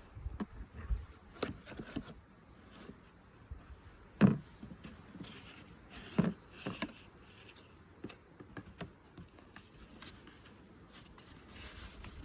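Cardboard box and packaging of a new RC truck being opened and handled: scattered rustles, taps and clicks, with two louder knocks about four and six seconds in.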